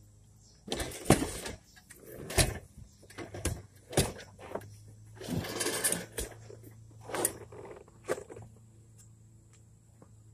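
Irregular clunks, knocks and rustling of a bicycle being handled and pushed into a car's interior. A low steady hum starts about four and a half seconds in.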